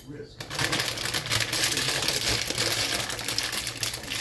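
Plastic bag of Quaker oats crinkling and rustling as it is handled over the pot, a dense crackling rustle that starts about half a second in.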